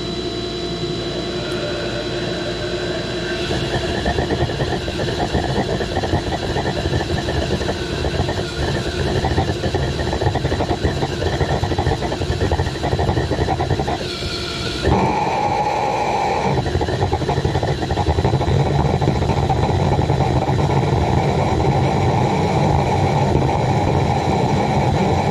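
Homemade waste oil burner firing, its oil fed by a pressure washer pump: a loud, steady machine noise with a few held tones, which dips briefly and changes pitch about fourteen seconds in.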